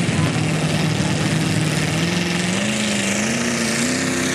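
Lifted mud truck's engine pulling hard through a deep mud hole, its revs climbing steadily higher as it pushes through.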